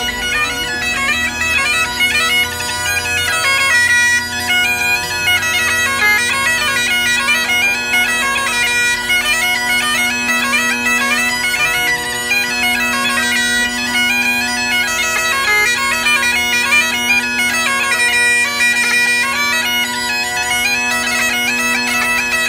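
Great Highland bagpipe played as a solo tune: the drones sound one steady chord underneath while the chanter plays a moving melody above.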